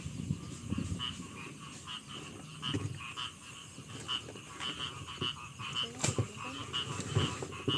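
A chorus of frogs croaking, short high calls repeating about once or twice a second over lower rattling calls. Now and then a dull thump sounds from people threshing rice by beating the sheaves.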